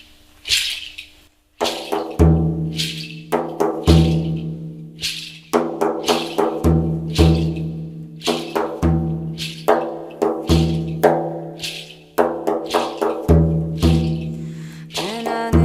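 Background music begins about a second and a half in, after a few short hissing swishes. It has deep bass notes, sustained pitched tones and sharp wood-block-like percussive hits.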